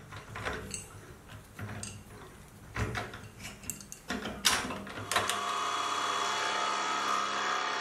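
Scattered metallic clicks and knocks as a collet chuck holding an end mill is fitted into a milling machine's spindle. About five seconds in, the mill starts running steadily as the 12 mm solid carbide end mill cuts the side of a cast iron casting.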